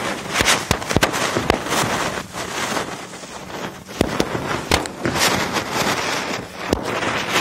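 A chakri ground spinner hissing steadily as it sprays sparks, while small firecrackers around it go off in sharp bangs: several in the first second and a half, then a few more spaced out later.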